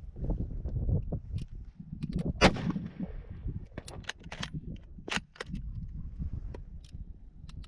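A single shot from a CETME FR-8 bolt-action rifle in .308 Winchester about two and a half seconds in, with a short echo. It is followed by a series of sharp metallic clicks as the bolt is worked to eject the case and chamber the next round.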